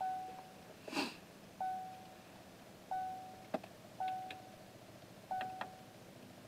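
Five short electronic beeps, each a single fading tone, coming irregularly about a second or so apart, with small clicks among the later ones. There is a sniff about a second in.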